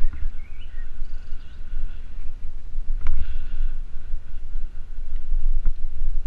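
Wind buffeting the microphone and the tyres rumbling on the path as a bicycle is ridden along, with a few sharp knocks from bumps. Faint high whistling notes sound through the first half.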